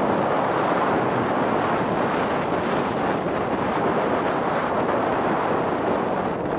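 Steady rush of wind buffeting a helmet or handheld camera's microphone as a skier travels downhill at speed, mixed with skis sliding over packed snow.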